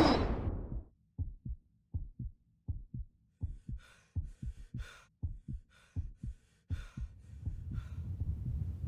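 A heartbeat sound effect: short, low thuds beating over and over. A whoosh dies away at the start, faint hissy bursts sound above the beats from about three seconds in, and a low rumble builds up near the end.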